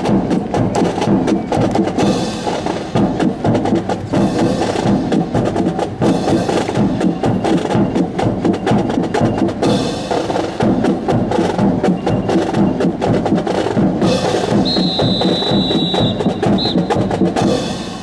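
Drill-team drums playing a rapid, continuous marching cadence, crisp strokes close together, with a high steady tone lasting about two seconds near the end. The drumming cuts off at the end.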